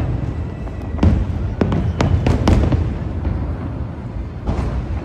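New Year fireworks going off: a run of sharp bangs and crackles over a continuous low rumble of bursts.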